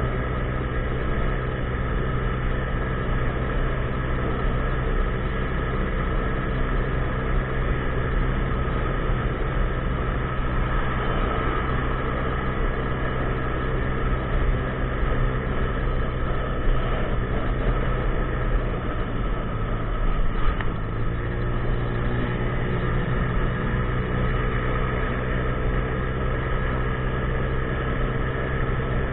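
50cc scooter's single-cylinder engine running at a steady cruising speed. About twenty seconds in, the engine speed dips briefly, then picks back up.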